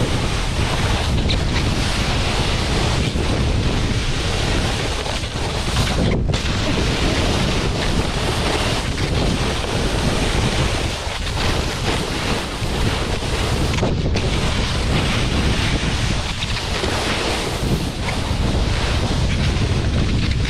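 Wind rushing over the microphone together with a snowboard sliding and scraping over snow during a descent, a steady loud noise with brief dips in its hiss about six and fourteen seconds in.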